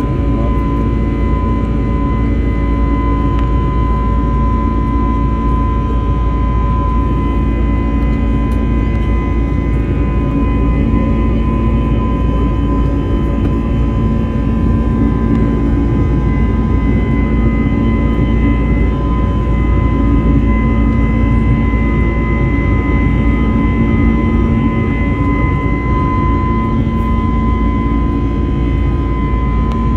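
Airliner jet engines heard from inside the passenger cabin while climbing after takeoff: a loud, steady drone with a thin, steady whine above it.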